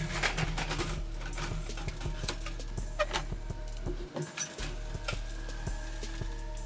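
Background music with scattered sharp clicks.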